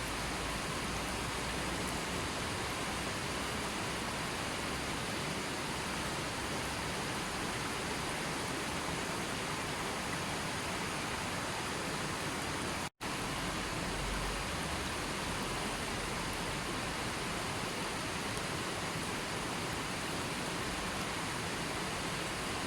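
Steady, even rushing of water, with no change in level. It cuts out completely for a split second about thirteen seconds in.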